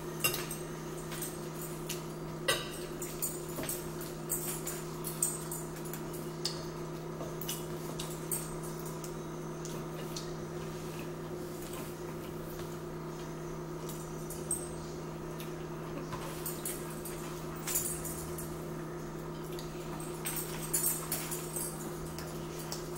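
Eating at a table: scattered short clicks, crunches and taps as fried shrimp and fries are picked up from plates and chewed, over a steady low hum.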